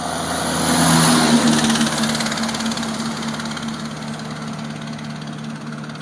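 Heavy dump truck driving past: engine and tyre noise swell to a peak about a second in, then fade as it pulls away down the road.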